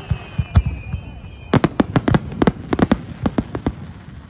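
Fireworks going off in a rapid series of sharp bangs and cracks, densest from about a second and a half in until near the end. A faint high whistle falls slowly in pitch during the first second and a half.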